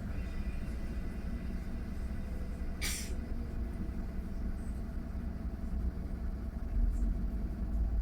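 Mercedes-Benz eCitaro G electric articulated bus heard from inside, with a low steady rumble and no motor whine. A short hiss comes about three seconds in, and the low rumble swells slightly near the end.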